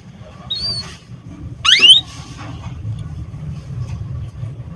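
Canary calls: a short whistled note about half a second in, then a loud, sharp upward-sweeping chirp just before two seconds in, over a steady low hum.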